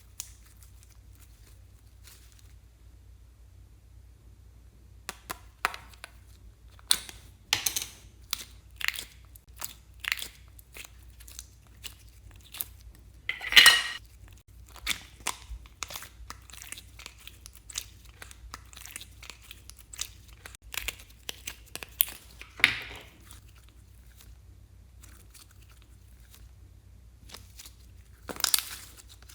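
Hands working slime: irregular sticky clicks, pops and crackles, a few of them louder, starting about five seconds in after a quiet stretch.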